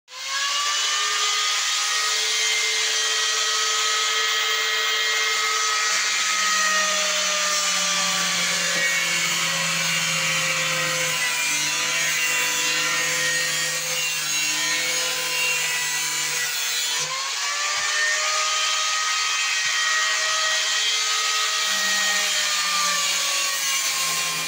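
Angle grinder cutting through metal bars: loud, steady grinding over a motor whine. The pitch of the whine slowly sags, then dips sharply and climbs back about two-thirds of the way through.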